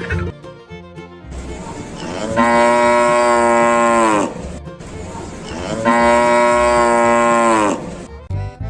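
A cow mooing twice, each moo about two seconds long and dropping in pitch at the end, over light background music.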